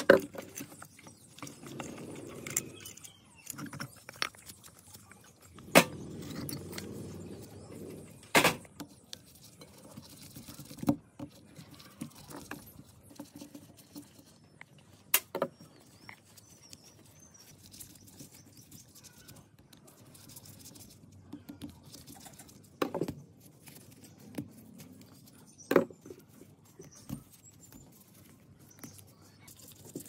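Hand tools and small metal parts clinking and knocking against an old electric motor's casing as its terminal box and wiring are taken apart by hand. A handful of sharp clicks are spread through, with softer scraping and rustling in between.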